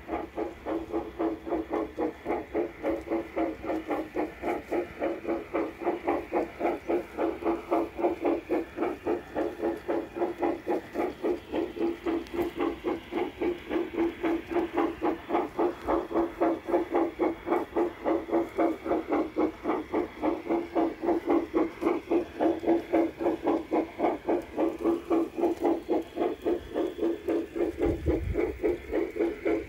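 LGB garden-scale Pennsylvania Mogul model steam locomotive's sound unit chuffing steadily, about three chuffs a second, as it pulls a train of box cars.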